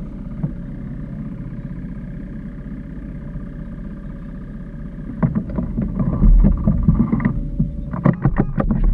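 Steady motor hum with several even tones. About five seconds in, uneven rumbling and a run of sharp knocks and bumps come in over it.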